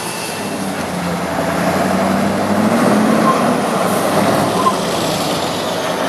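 Diesel engine of an 8x8 off-road trial truck working hard under load. It revs up a little in the first half and then holds steady.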